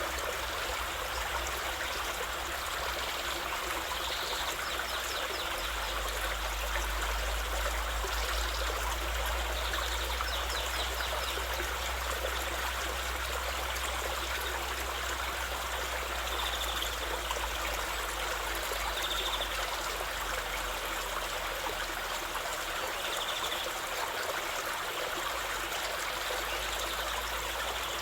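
Stream water flowing and trickling in a steady, unbroken rush, with a few faint short high chirps now and then.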